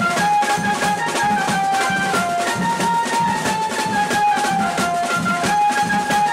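Loud band music with a fast, steady drum beat under a melody of held notes that steps up and down, played for a crowd dancing in a street procession.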